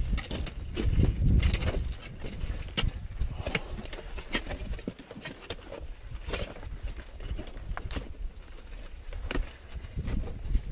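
Climbers' boots crunching in snow and trekking poles clicking on snow and rock, in irregular steps about a second apart. Wind buffets the microphone with a low rumble, strongest in the first two seconds.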